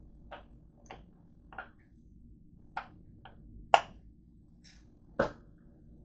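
About eight short, sharp clicks at irregular intervals, the loudest a little past halfway and another near the end, over a faint steady low hum.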